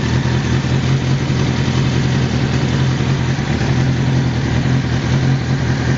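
1998 Kawasaki ZX-6R's 600 cc inline-four engine idling steadily while hot, with its electric radiator cooling fan running.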